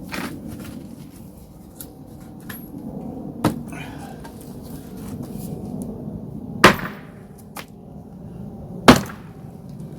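Hammer blows on a wooden pallet, knocking the battens loose: four main strikes a few seconds apart, the last two the loudest, with a few lighter knocks between.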